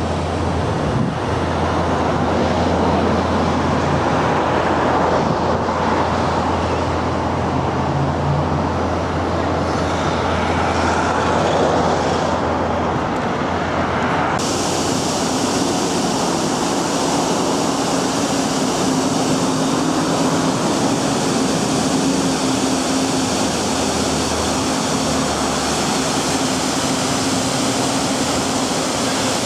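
Steady road traffic noise, a constant wash with a low hum under it; about halfway through it cuts abruptly to a hissier version of the same noise.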